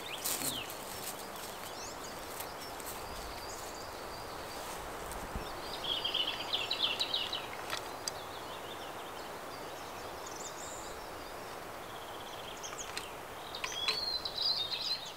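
Forest ambience: a steady rustle of wind through the trees, with small birds chirping and trilling about six seconds in and again near the end.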